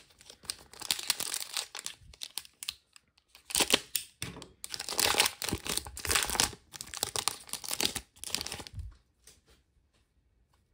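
Foil trading-card pack wrapper crinkling and tearing as it is opened and the cards pulled out, in a run of crackly bursts that stops about nine seconds in.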